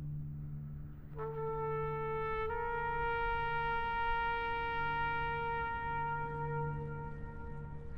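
Slow film-score music: a trumpet comes in about a second in and holds one long note over a low sustained drone.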